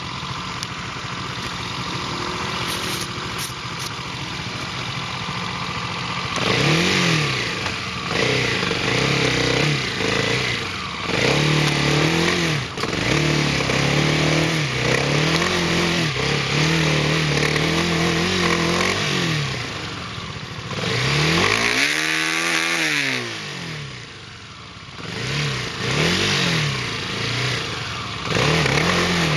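Off-road vehicle engine running steadily, then revved up and down over and over from about six seconds in, with one long rise and fall of pitch about two-thirds of the way through.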